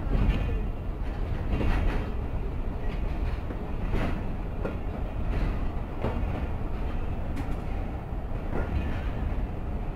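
Passenger train coaches moving off slowly, heard from the coach doorway: a steady low rumble of wheels on rail with sharp clanks every second or two as the wheels cross rail joints.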